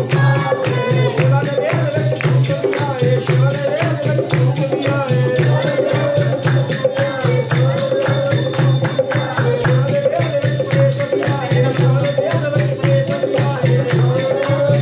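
Devotional music played live: fast, steady percussion with jingling, shaker-like strokes and a pulsing low beat under one held, wavering melody line.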